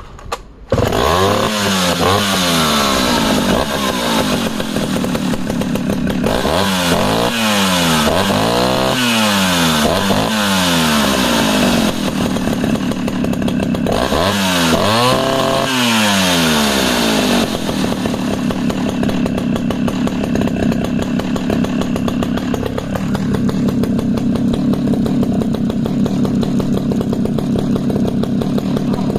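Vintage 110 cc two-stroke chainsaw starting about a second in, then revved up and down several times before settling into steady running.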